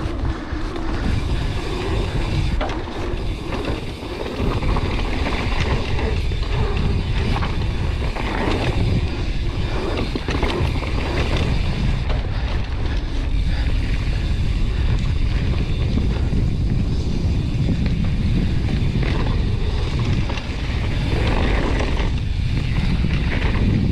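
Gale-force wind buffeting an action camera's microphone in a continuous loud, deep rumble, over the noise of a mountain bike rolling down rough trail.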